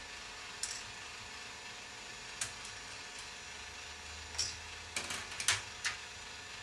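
Rotating K'nex ball machine: scattered sharp plastic clicks as balls roll and drop along its track, most of them in a quick cluster about five seconds in, over a steady hiss.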